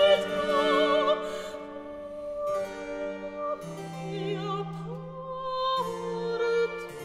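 Background music: an operatic voice sings long held notes with vibrato over instrumental accompaniment.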